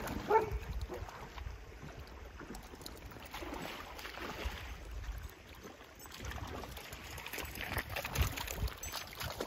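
Wind rumbling on the microphone over water lapping against the stones of a lakeshore. A short dog whine sounds right at the start.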